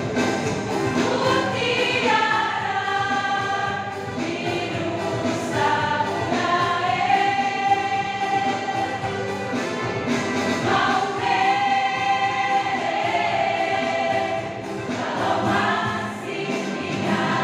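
Women's choir singing together, holding and shifting long sung notes.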